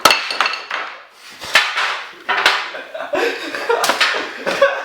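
Kitchen dishes knocking and clattering: about seven sharp, ringing hits spread unevenly.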